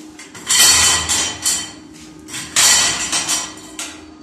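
Lengths of light steel channel clanking and clattering as they are set down and dropped onto a concrete floor against other steel pieces, in two loud bursts of several metal hits about two seconds apart.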